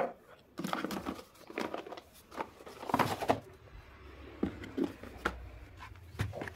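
Boxes of crayons and drawing books being lifted out of a desk drawer and set down on a wooden table: scattered knocks, clatter and rustling of handled items, with a sharp knock right at the start.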